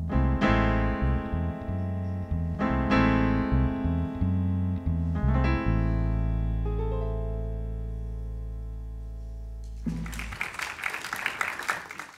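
Piano playing the closing chords of a piece, the last chord held and dying away, then applause breaking out near the end.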